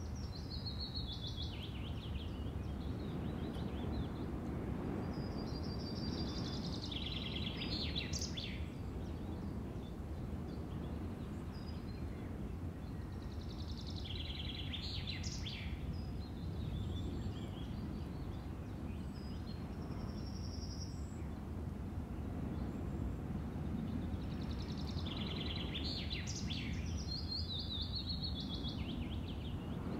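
Steady low background noise with a songbird singing short chirpy phrases, about five times.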